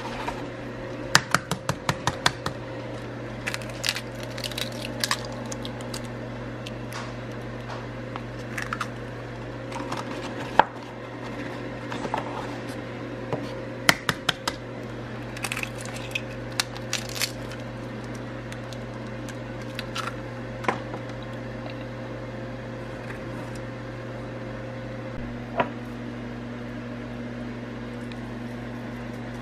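Steady hum of a Copper Chef air fryer running, with scattered sharp taps and clicks as eggs are handled and cracked into a pan. Near the end the hum drops to a lower pitch.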